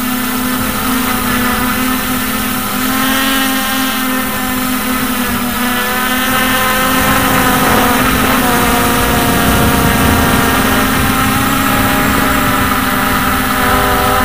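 Brushless motors and propellers of a Hubsan X4 H501S quadcopter whining steadily in flight, heard close up, their pitch wavering slightly as the motors adjust. A low wind rumble rises about halfway through.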